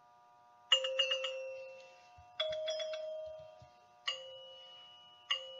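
Four bell-like chime strikes about a second and a half apart, each ringing and fading, the first two with quick repeated hits, over a faint steady tone: a chiming logo jingle.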